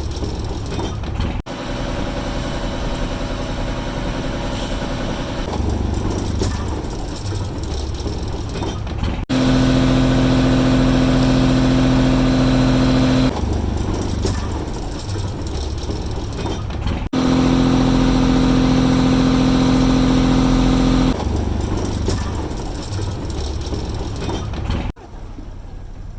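Fishing boat's engine running steadily, in several short stretches cut together; in two of them, one in the middle and one a little later, it is louder, with a strong steady hum.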